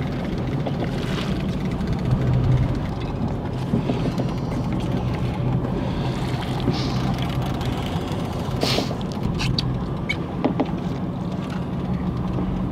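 Charter fishing boat's engine running steadily with a low hum, with a few short knocks over it.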